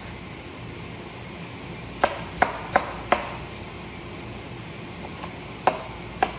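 Kitchen knife chopping a jalapeño on a cutting board: four quick strikes about two seconds in, then two more near the end.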